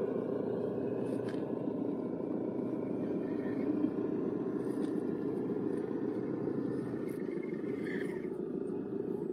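6x6 Unimog's engine running steadily as the truck drives down a steep dirt descent: a continuous low drone with a few faint knocks and rattles.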